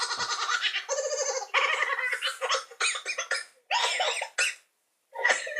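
A person making a silly, high-pitched noise with the voice: a rapid fluttering warble in a run of choppy bursts. It breaks off about four and a half seconds in and starts again just before the end.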